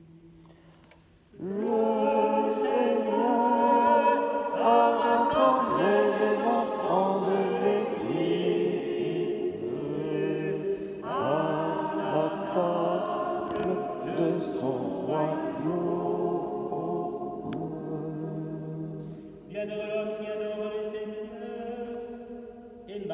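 Choir singing a French liturgical refrain in four-part harmony, starting about a second and a half in. Near the end the singing changes to a psalm verse chanted on a psalm tone.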